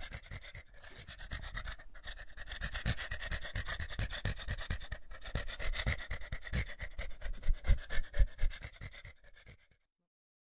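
Rapid dog-like panting, a quick even run of short breaths, that cuts off suddenly near the end.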